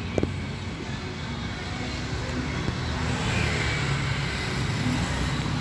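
Street traffic: a steady rumble of passing cars and motorcycles, a little louder from about halfway through, with one short click near the start.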